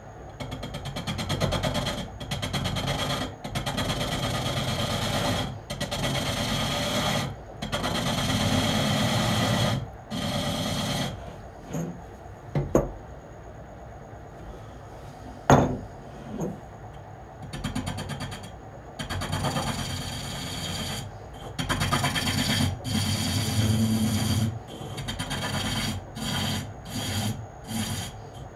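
Hook tool cutting a spinning wooden cup blank on a Japanese-style lathe, a run of one- to two-second scraping cuts with short breaks, as the oval blank is trued round. Near the middle the cutting stops for several seconds, broken by two sharp knocks, then resumes in shorter passes.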